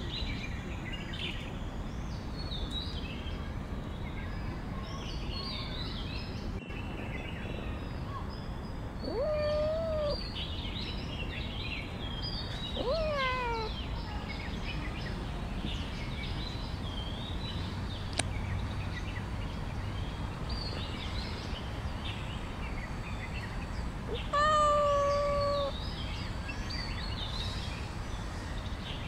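A tabby-and-white cat meows three times, about a second each and spread well apart: one about a third of the way in, a second that rises then falls, and the loudest, held level, near the end. Small birds chirp and twitter throughout over a steady outdoor background noise.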